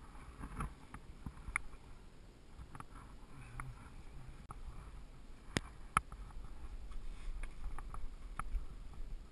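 Scattered scrapes and knocks of a climber scrambling over rock in ski boots, with two sharper knocks in quick succession a little past halfway. A low wind rumble on the microphone runs underneath.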